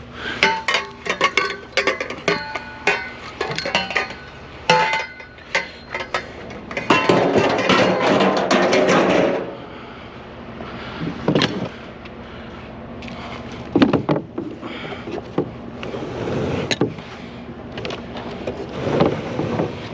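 Metal scrap clanking and clinking as pieces are handled and dropped, many sharp knocks with brief metallic ringing, then a longer rattling scrape about seven seconds in, followed by scattered knocks.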